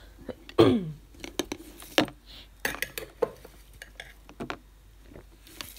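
Metal spoon scooping dry muesli out of a glass jar: scattered clinks and scrapes of the spoon against the glass and the bowl, the loudest about half a second in.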